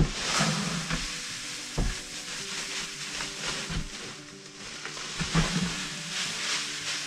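Fescue seed pouring from a bag into a plastic bucket: a steady rustling hiss of falling seed, with an occasional knock.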